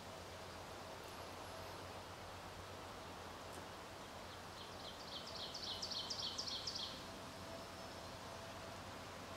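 Quiet outdoor ambience, with a songbird singing a rapid trill of high repeated notes for about two seconds near the middle.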